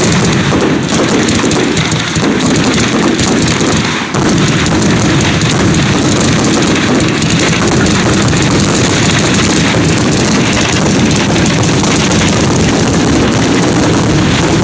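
Fireworks finale: aerial shells launching and bursting in a near-continuous barrage, the bursts running together into one steady din. There is a short lull about four seconds in.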